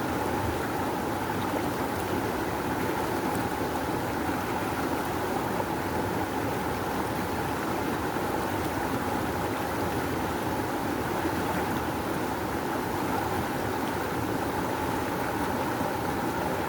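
River water rushing steadily, a constant full wash with no breaks or single splashes.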